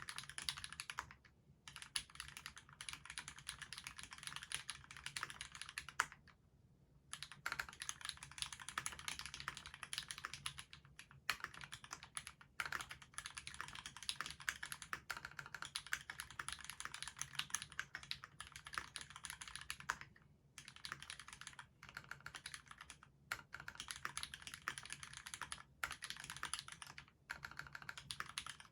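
Steady, fast typing on a Duck Octagon v3 mechanical keyboard with Krytox-lubed Cherry retooled Black linear switches, a stainless steel plate and GMK doubleshot ABS keycaps: a dense run of key clicks, broken by a brief pause three times.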